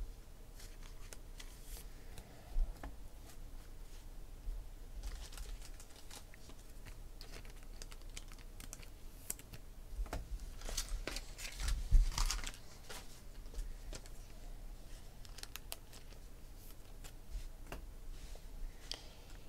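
Hands handling trading cards and clear plastic card holders: scattered light clicks, rustling and crinkling of plastic, busiest around ten to thirteen seconds in, with one louder knock about twelve seconds in.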